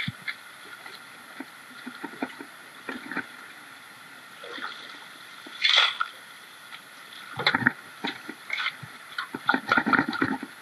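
Shovel digging gravel and stones from a riverbed in the water, with irregular scrapes, knocks and splashes, the loudest about halfway through and in the last few seconds. The river flows steadily underneath.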